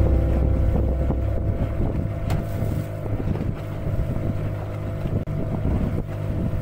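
A small motorboat's engine running steadily under way, with water splashing along the hull and wind buffeting the microphone.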